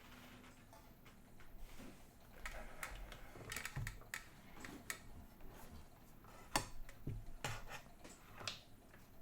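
Scattered light clicks and knocks of a clamp meter and its test leads being handled and set up on a workbench, the sharpest about six and a half seconds in.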